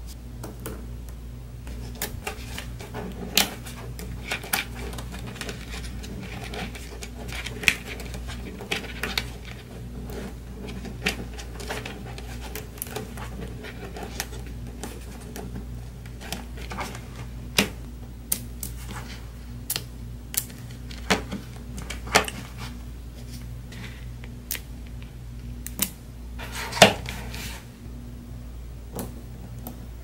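Small neodymium magnet balls clicking and snapping against each other as they are fitted by hand. The clicks are sharp and irregular, with the loudest snap near the end, over a steady low hum.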